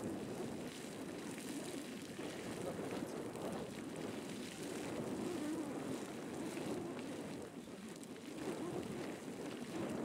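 Beehive's Indicator Geyser erupting: a steady rushing and splashing of its water jet, mixed with wind on the microphone.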